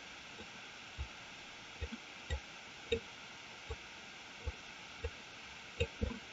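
Soft computer mouse clicks, about ten at uneven intervals, over a steady low hiss.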